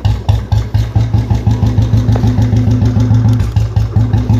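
Royal Enfield Bullet single-cylinder engine with a modified 'heavy sound' exhaust, running on its own just after starting. Its loud, even rapid thump is at a slightly high idle.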